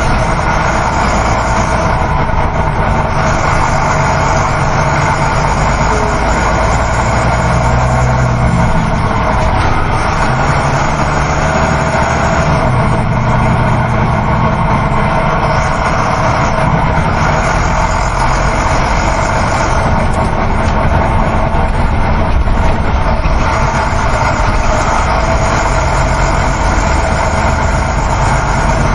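Inside a moving coach bus: a steady engine drone under continuous road and wind noise.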